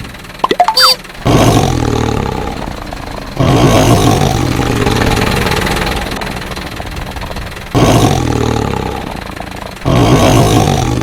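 A series of four recorded animal roars, each starting abruptly and fading over two to four seconds, preceded by a brief cartoon-style whistle glide about half a second in.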